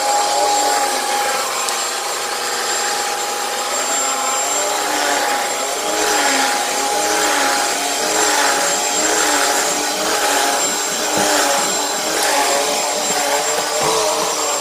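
Commercial vacuum cleaner running on carpet with a steady high motor whine. From about a third of the way in, its sound swells and dips about once a second as it is worked back and forth.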